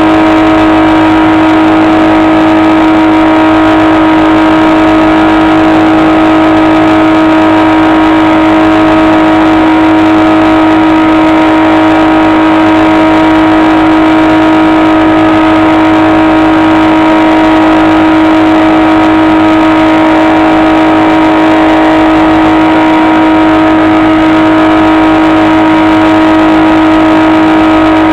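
Electric motor and propeller of a HobbyKing SkyEye FPV plane running at one steady pitch, loud, with no change in throttle.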